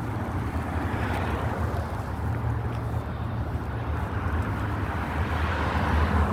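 Wind rumbling on the microphone outdoors, a steady low rumble with a noisy swell about a second in and another near the end.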